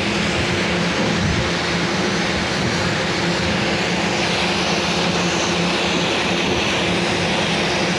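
Pressure washer with a plunger pump running steadily: an unchanging machine drone with a constant hum and hiss throughout.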